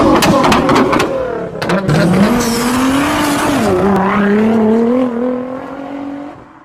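Performance car engine revving hard, with sharp exhaust pops and cracks in the first two seconds. The engine note then holds high, dipping and rising again, and fades out near the end.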